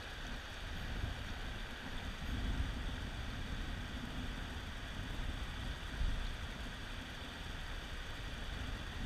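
Rapids on a river rushing steadily, with wind buffeting the microphone in uneven low gusts, one stronger about six seconds in.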